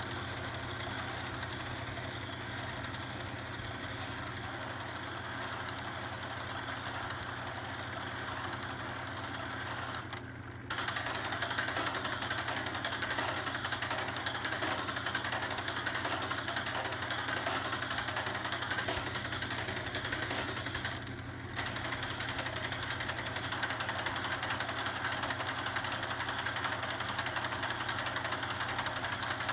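Motorized faders of a PreSonus StudioLive 32SC digital mixer whirring as they slide under automation, over a steady low hum. The sound cuts out briefly twice, about ten and twenty-one seconds in, and is louder after the first break.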